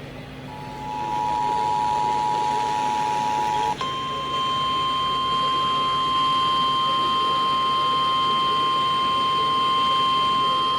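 Emergency alert attention signal announcing a flash flood warning. A steady two-note alarm tone sounds for about three seconds, then switches abruptly to a single, slightly higher steady alarm tone, the weather radio warning alarm, which holds for the rest of the time.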